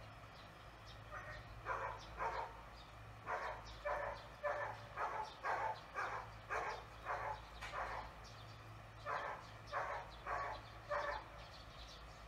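A dog barking repeatedly, about two barks a second in a long run, with a short pause partway through.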